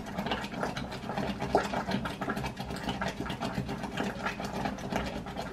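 Wooden spoon stirring and beating semolina into a thick dough in a steel pot: a fast, uneven run of scraping knocks against the pot, over a steady low hum.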